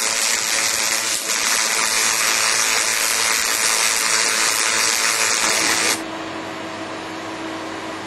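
Twin-wire (tandem) MIG welding arc on thick aluminium plate, a loud steady hiss that stops abruptly about six seconds in, leaving a quieter steady hiss with a low hum.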